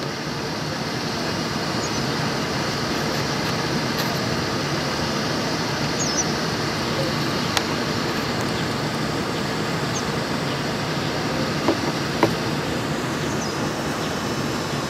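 Steady vehicle noise, even and unchanging, with a few faint clicks past the middle.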